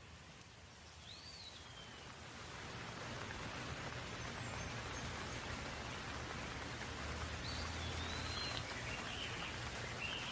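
Steady rain falling, its hiss swelling over the first few seconds and then holding, with a bird chirping: one arching call about a second in and a run of short chirps near the end.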